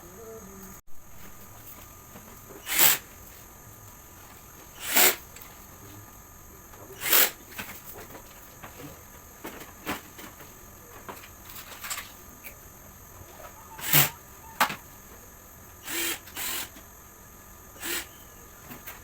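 Power drill-driver run in short bursts of under half a second, roughly every two seconds, as screws are driven or removed.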